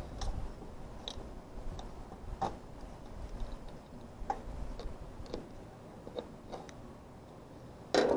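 Small irregular clicks and taps of hands and tools working on the AC unit's wiring, connecting wires to the new capacitor's terminals, with one louder knock at the end.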